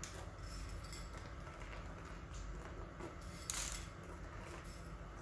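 Faint light ticks of mini chocolate chips being scattered by hand onto cake batter in a round pan, with one sharper click about three and a half seconds in, over a low steady room hum.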